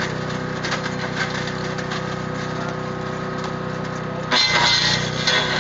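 Echo Bear Cat SC2170 branch shredder running with a steady hum and light crackling as wood goes through. About four seconds in, a branch is chipped in a loud burst of splintering that lasts about a second.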